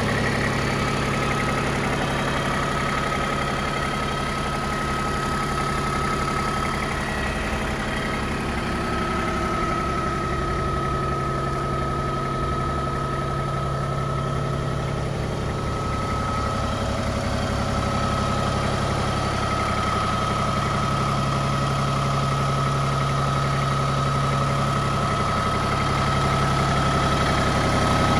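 Iseki TPC153 compact crawler tractor's three-cylinder diesel engine idling steadily, with a thin steady whine above it.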